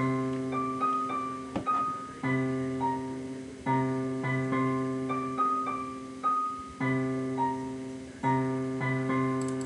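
FL Studio's FL Keys software piano on its 'Dark Piano' preset playing a sequence of held chords, a new chord struck every second or two, with a higher melody line over them.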